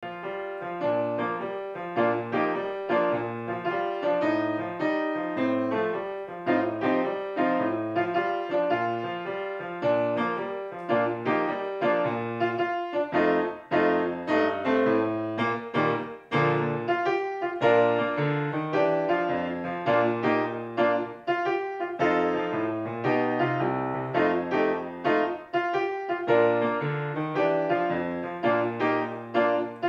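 Piano music: a steady stream of notes over a repeating bass line.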